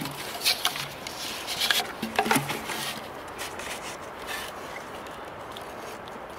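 Handling noise from plastic bottles, rope and a hook being worked by hand: a few sharp clicks and rustles in the first half, then quieter.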